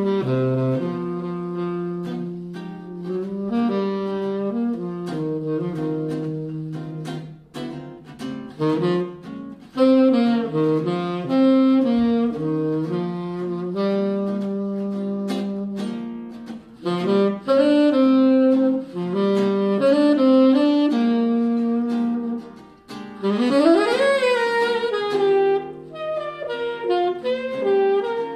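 Jazz saxophone playing the melody in phrases over acoustic guitar chords, with a quick upward smear about 23 seconds in.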